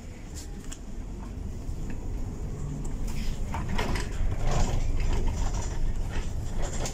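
Inside a Mercedes-Benz Citaro G C2 articulated bus arriving at a stop: a steady low engine and road rumble, with clicks and clunks of the door mechanism. The noise grows louder about halfway through.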